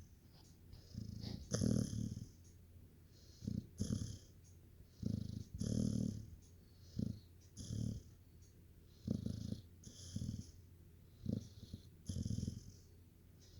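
A sleeping pet snoring in a steady rhythm. The in-and-out breaths come in pairs about every two seconds, each a low rumbling snore with a hissing breath over it.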